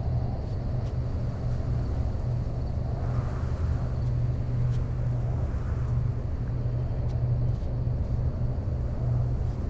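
Steady low rumbling drone, even in level throughout.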